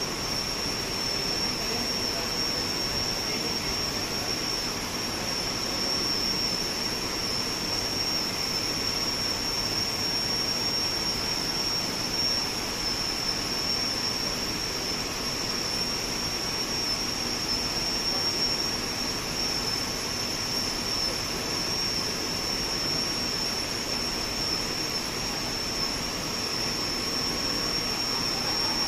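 Steady rushing noise of cavern ventilation and electronics-rack cooling equipment, with a constant high-pitched whine on top.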